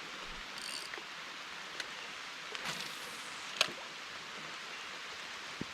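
Steady hiss of rain falling on water, with a few scattered ticks and one sharper knock about three and a half seconds in.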